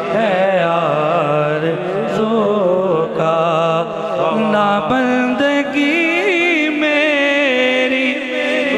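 A man singing a naat through a PA system, held and wavering melismatic phrases running on without a break, over a steady low drone.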